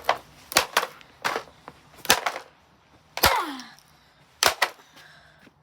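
Blaupunkt fan heater being smashed: a string of sharp, hard blows on its casing, about nine in all, coming in ones and quick pairs. One blow about three seconds in leaves a short falling ring.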